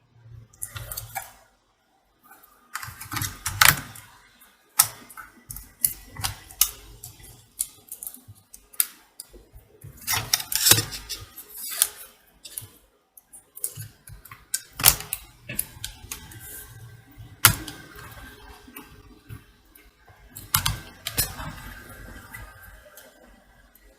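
Irregular clicks, taps and knocks of small hard plastic and metal parts being handled, as when a laptop and its parts are worked on by hand.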